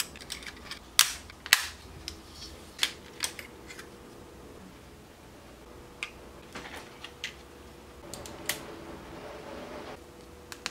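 Small plastic model parts clicking and snapping as pieces of a Kato N-scale station platform are fitted together by hand: a series of sharp clicks, loudest about a second in, with a short stretch of rustling near the end.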